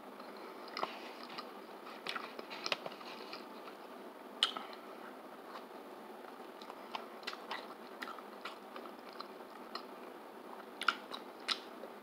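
Mouth sounds of eating pepperoni pizza: fairly quiet chewing with scattered wet smacks and clicks, as fingers are licked and sucked.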